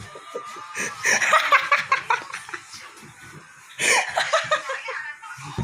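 People giggling and snickering in short bursts, with a louder burst about four seconds in.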